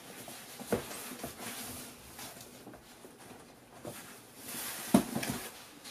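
Cardboard shipping box being picked up and handled: faint scattered knocks and scuffs, the loudest knock about five seconds in.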